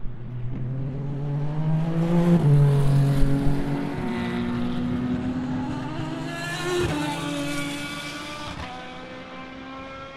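Endurance race car engines accelerating, the pitch climbing and then dropping back at each upshift, about two, four and seven seconds in. Loudest two to three seconds in, then fading as they pull away.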